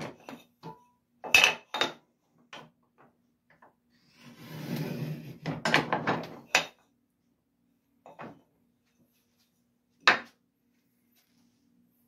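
Hand-lever miter trimmer shaving the end of cherry frame moulding, with a scraping cut of about two seconds in the middle. Sharp clacks of the lever, blades and workpiece come before the cut, after it and near the end.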